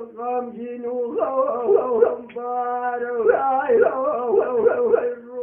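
A man singing Kurdish hore unaccompanied: one voice holding long notes and decorating them with rapid trills and wavering turns, with a long steady held note about halfway through.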